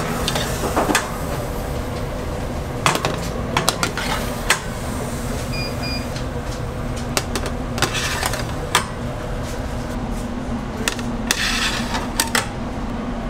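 Metal baking trays clicking and clattering against the racks of a commercial convection oven over a steady hum, with a busier run of clatter near the end as a tray is pushed in. A short electronic beep sounds about halfway through.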